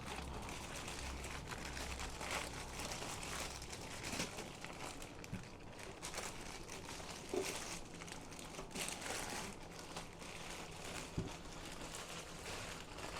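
Packaging being pulled and handled to free the unit: continuous crinkling and rustling with a few small knocks scattered through.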